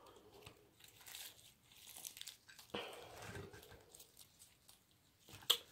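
Faint crinkling of a plastic sauce packet and the crackle of crispy fried-chicken breading as a piece is pulled apart by hand. A single sharp click near the end is the loudest sound.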